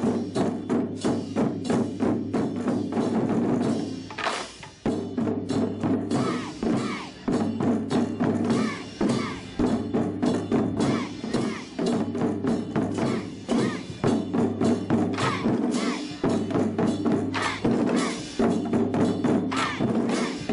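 A children's ensemble beating taiko barrel drums with wooden sticks in a fast, driving rhythm, with a short break about four seconds in before the beating comes back in full.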